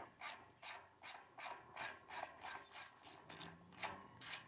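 Hand nut driver turning a terminal nut loose on a generator's alternator to free the neutral-to-ground bond wire: a steady run of short scraping strokes, about three a second.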